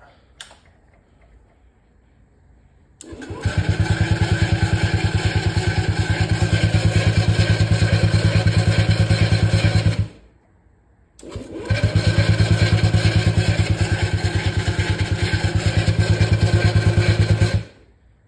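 Honda Ruckus scooter's 49cc four-stroke single being cranked on its electric starter in two long bursts, a rapid even chugging that stops suddenly each time without the engine catching: it won't start after sitting for a couple of months.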